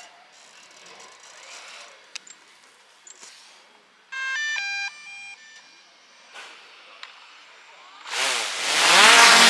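Small camera drone starting up: a short tune of electronic beeps about four seconds in, then near the end its motors spin up, a rising whine with loud propeller noise.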